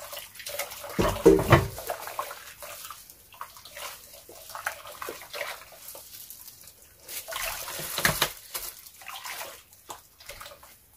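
A spatula stirring a thin, hot, milky liquid in a slow-cooker pot, with irregular sloshing and splashing and a louder bump about a second in. This is the oil and water phases of a cream being mixed together while still very liquid.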